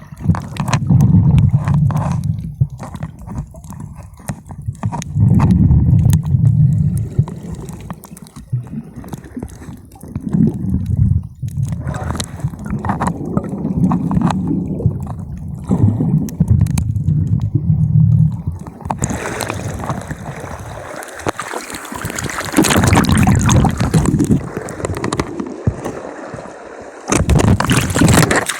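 Sea water recorded with the camera underwater: muffled sloshing and gurgling in low surges every few seconds. About two-thirds of the way through it changes to a brighter, hissing wash of water.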